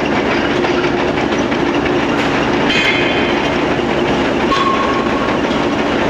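Loud, steady machinery din of a forging shop floor, with a constant hum and a brief high-pitched screech about three seconds in.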